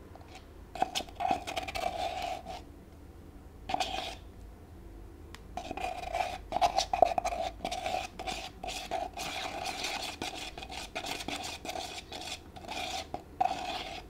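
A utensil scraping thick plaster of Paris paste out of a plastic cup, in repeated scraping strokes: a short run about a second in, another near four seconds, then almost continuous scraping from about five and a half seconds in.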